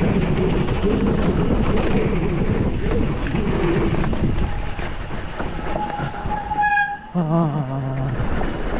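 Hardtail mountain bike riding fast down a dirt trail: tyres rumbling over the ground, with chain and frame rattle and wind on the microphone. A brief high squeal comes about six seconds in, followed by a short wavering tone.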